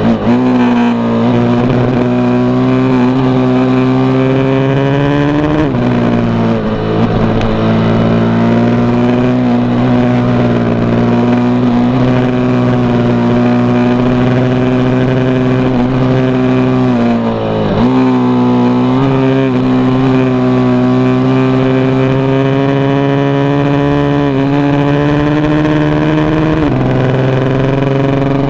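KTM RC8's V-twin engine running under steady throttle, heard from on board the bike. Its pitch dips sharply and recovers three times: about six seconds in, about two-thirds through, and near the end.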